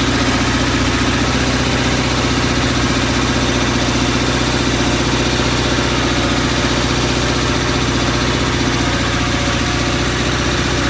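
Onan CCKA two-cylinder air-cooled engine on a Gravely 450 tractor running at a steady speed.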